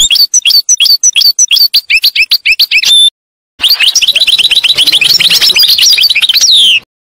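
Songbird chirping loudly in a fast run of repeated, hooked notes that breaks off about three seconds in. After a short gap it resumes as denser, quicker twittering, then stops abruptly near the end.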